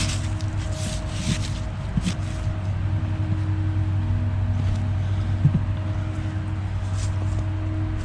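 Pancake air compressor running steadily, a continuous motor hum, with a few brief clicks and short hisses over it.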